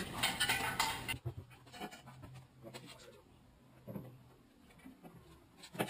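Handling noises from a steel jack stand being set under a car-lift ramp: a clatter in the first second, then a few faint knocks and one sharp knock just before the end.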